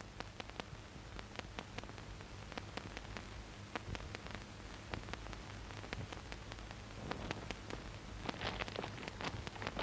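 Hiss and low hum with irregular scattered crackles, the surface noise of an old film soundtrack.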